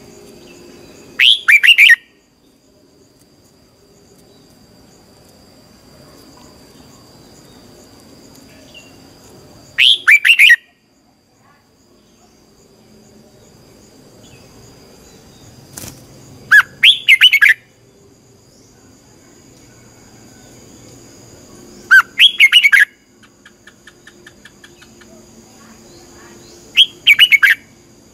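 Red-whiskered bulbul singing five short, loud song phrases, each under a second, spaced about five to six seconds apart.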